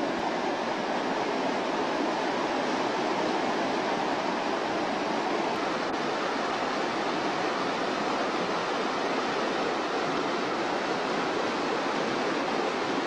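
Steady rushing of a fast-flowing stream, an even hiss of running water with no breaks.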